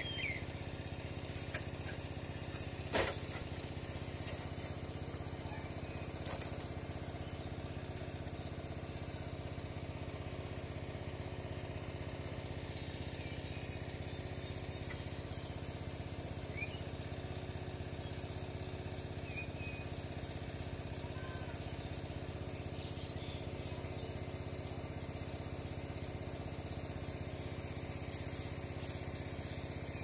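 A steady, even drone of a running engine or motor, with a sharp click about three seconds in and a few faint, short high chirps.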